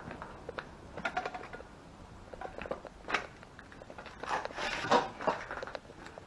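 Footsteps crunching and scraping over debris and rubbish on a hard floor, with irregular clinks, loudest in a cluster about five seconds in.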